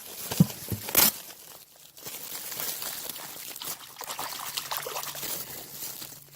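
Two sharp knocks in the first second, then water pouring and trickling out of a Goodman heat pump indoor unit that has overflowed with water.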